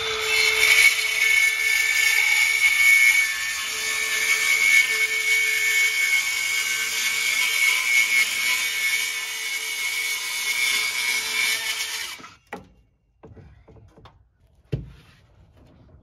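Cordless circular saw cutting through a wood siding panel: a steady motor whine and cutting noise for about twelve seconds that cuts off suddenly, followed by a single knock a couple of seconds later.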